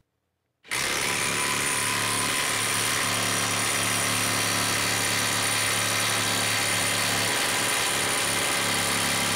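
Ryobi PSBIW25 18-volt brushless impact wrench starting up about a second in and hammering steadily at full trigger against a hydraulic dyno load.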